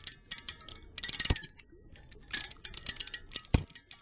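Hinged paddles and metal fittings of a model submerged-paddle water wheel clicking and rattling in quick clusters as it turns, with two heavier knocks, about a second in and near the end.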